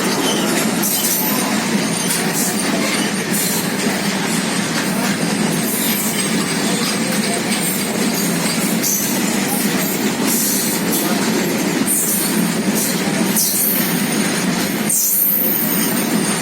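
Train running on the rails, a steady loud rumble with short high-pitched wheel squeals coming and going.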